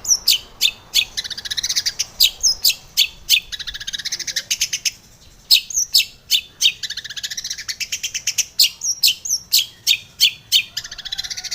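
Long-tailed shrike singing. Sharp, loud call notes come several times a second and alternate with runs of fast, rattling chatter.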